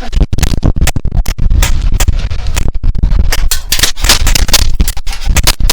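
Wind buffeting an action camera's microphone, a heavy uneven rumble broken by many sharp scratchy crackles and scrapes.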